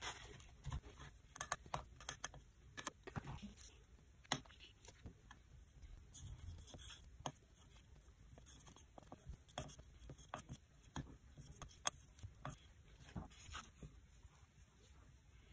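Faint, irregular clicks and light scrapes of a wooden spatula working powder into a paste on a hard flat palette, with small taps of the tool against the plate.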